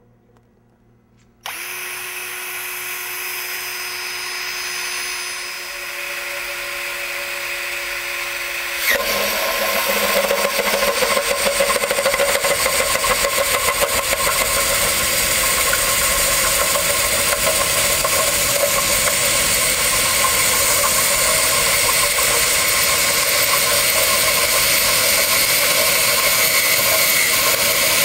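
A drill driving a standard (non-impact) hole saw starts a little over a second in and spins steadily. From about nine seconds the saw's teeth bite into the sheet-metal junction box, giving a louder, rougher grinding of metal cutting that runs on steadily.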